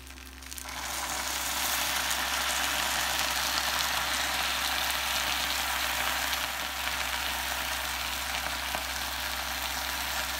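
Vinegar poured onto the hot griddle plate of an electric indoor grill, sizzling: a sudden hiss starts under a second in and settles into steady frying as it cooks down with the veggie bacon, onions and garlic.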